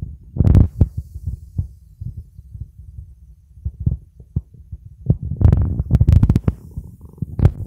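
A cat chewing and crunching crisp snack pieces close to the microphone: a steady run of irregular low chewing thuds, with louder, sharper crunches about half a second in, again in a cluster around five to six seconds in, and once near the end.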